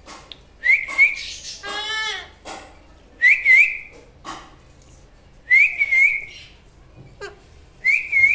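Four short wavering whistles at about the same pitch, one roughly every two and a half seconds. A brief call sliding in pitch comes between the first two.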